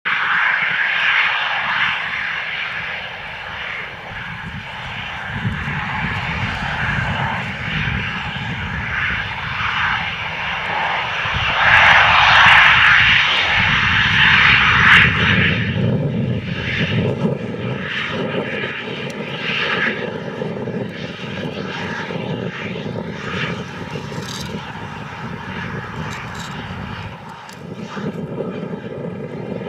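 Gulfstream G550 business jet's twin Rolls-Royce BR710 turbofans running at taxi power as the jet turns and rolls slowly: a steady jet whine and hiss over a low rumble. It swells to its loudest about halfway through, then settles.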